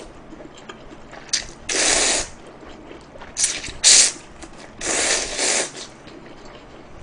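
A man slurping spicy mixed noodles with chopsticks: several loud slurps about half a second each, the longest near the end.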